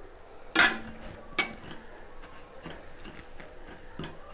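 Metal spatula scraping and clinking against a metal kadai while stirring cumin seeds frying in ghee. One louder scrape comes a little after half a second in and a sharp clink near a second and a half, then only faint light ticks.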